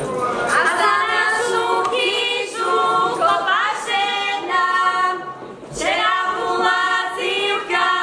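Several young women's voices singing a folk song together without accompaniment, in held notes with upward slides into each phrase, and a short pause for breath about five and a half seconds in.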